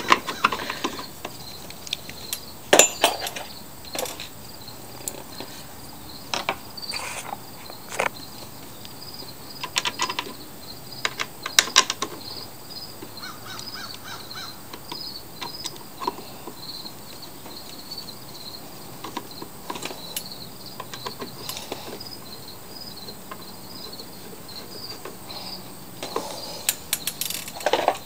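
Scattered sharp clicks and knocks from a screwdriver and the plastic blower housing as the housing is screwed back onto a lawn mower engine. Under them, insects chirp in a steady pulsing rhythm.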